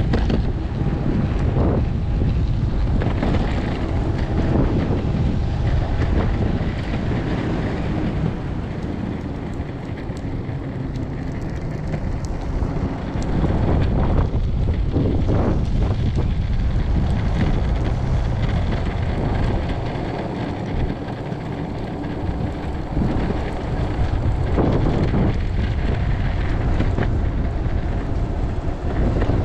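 Strong wind buffeting the microphone, over the steady low rumble of an electric skateboard rolling on pavement.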